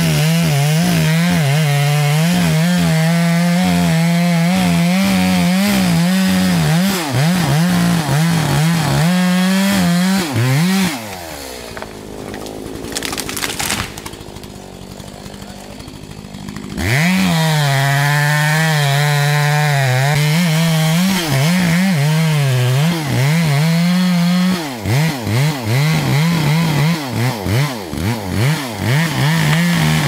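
Two-stroke chainsaw felling a spruce, running at full throttle in the cut for about eleven seconds. It drops back to a much quieter idle for about six seconds, runs at full throttle again, and for the last few seconds is revved in short bursts.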